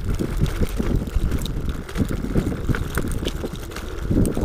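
Wind buffeting the microphone, with irregular knocks and rattles from a VSETT 8 electric scooter riding over a rough dirt path.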